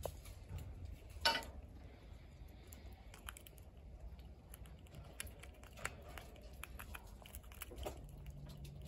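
Gray squirrel gnawing a whole walnut, its teeth scraping and cracking the hard shell: faint crunching and scattered clicks, with one louder crack about a second in.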